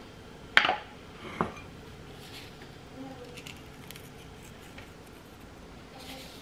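Two sharp knocks in the first second and a half, the first one loud, then faint scattered ticks.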